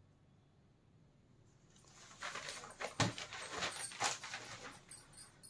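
Quiet room at first, then from about two seconds in a cotton saree rustles and flaps as it is unfolded by hand, with sharper flaps about three and four seconds in.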